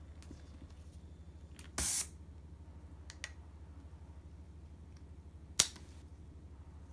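A cat at play with a wand toy on a wooden floor: a short rustling scrape about two seconds in, a faint click, then a single sharp knock near the end, the loudest sound, over a low steady hum.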